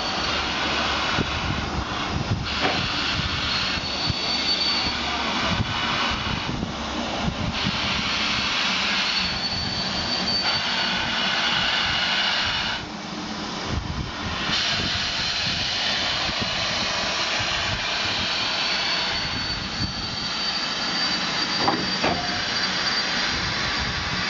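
BR Standard Class 5 steam locomotive with its cylinder drain cocks open, steam hissing loudly from both cylinders as it moves slowly forward. The hiss eases briefly about halfway through.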